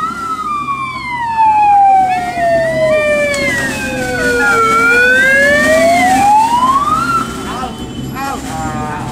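Handheld megaphone's built-in siren giving one slow wail, sounded as an air-raid alarm: the pitch falls steadily from high to low over about four seconds, climbs back up and cuts off about seven seconds in, with fainter wavering tones over it.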